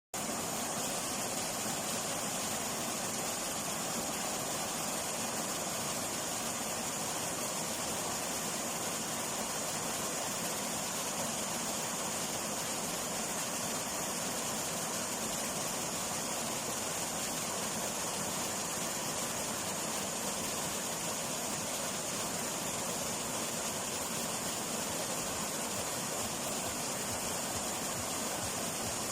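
Water of a stream running over rocks, a steady rushing hiss with no break.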